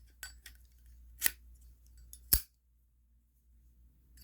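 Zippo lighter being handled, its hinged metal lid clicking open and snapping shut: about four short, sharp metallic clicks roughly a second apart. The loudest, a little past halfway, carries a dull thud.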